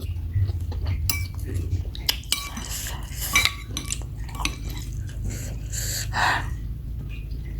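Spoon and fork clinking and scraping against a bowl of bakso meatball soup while eating, a run of small irregular clinks with a few brief rustling or slurping sounds.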